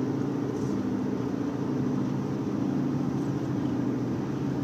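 Car running, a steady engine and road hum heard from inside the cabin.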